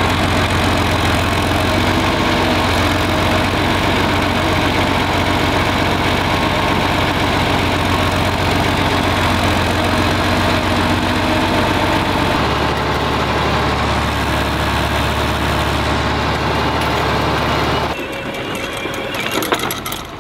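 John Deere loader tractor's engine running steadily while driving, heard close from on the tractor; its low note drops to a lower pitch about twelve seconds in. Near the end the engine sound falls away, leaving a quieter sound with light clicks.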